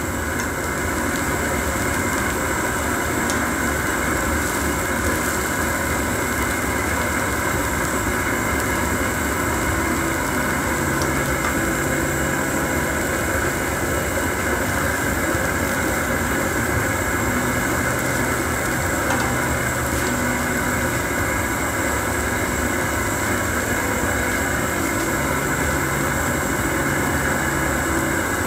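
Steady mechanical hum, like a small engine running, with a low tone that swells and fades every few seconds.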